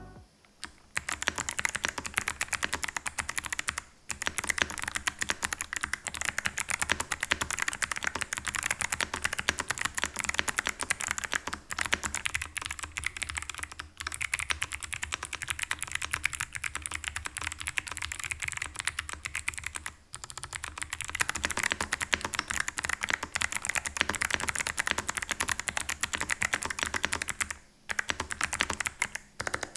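Fast typing on an Ajazz AC100 mechanical keyboard with clicky Kailh Box White switches: a dense run of sharp key clicks, broken by short pauses every few seconds.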